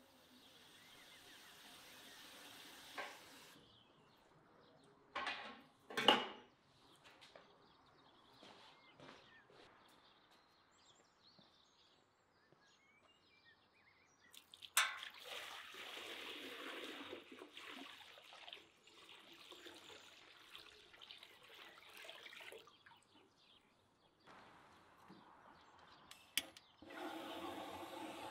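Water poured from an enamel bucket into a cast-iron cauldron, a steady pour lasting several seconds. Earlier there are a few sharp knocks, and near the end comes the steady hiss of a gas torch lighting firewood.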